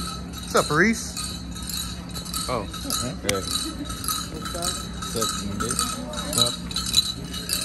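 Metal jingles and bells on powwow dance regalia shaking in a quick, steady jingling, with faint voices nearby.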